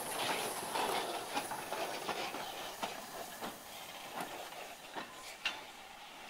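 BR Standard Class 4 steam locomotive No. 75069 moving slowly away, a steady hiss of steam with irregular clanks and clicks from its wheels running over the track. The sound fades as it goes.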